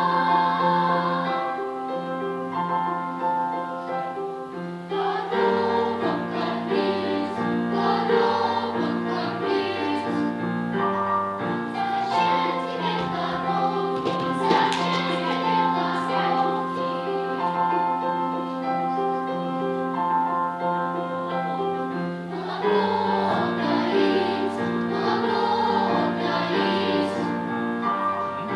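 A children's choir singing a song with steady instrumental accompaniment.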